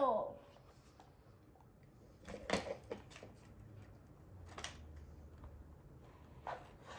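A few faint clicks and light clatters of plastic Lego pieces, a cluster about two to three seconds in and single ones near the middle and near the end, in an otherwise quiet room.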